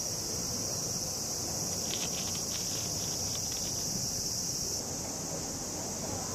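Insects, most likely summer cicadas, keeping up a steady high-pitched drone, with a short run of rapid clicking about two seconds in.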